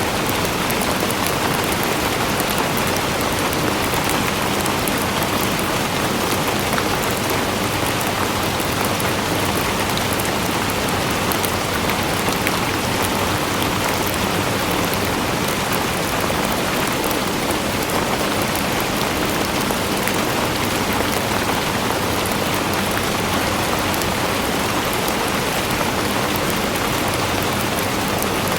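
Steady rain falling on a hard surface, an even hiss with countless fine drop ticks, unchanging throughout.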